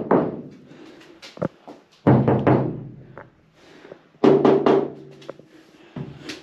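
Bare sheet-steel roof and body panels of a 1974 VW bus knocked by hand, several hits in small clusters, each leaving a hollow, drum-like ring that dies away over about a second. The panels are undamped, with no sound-deadening material on them yet.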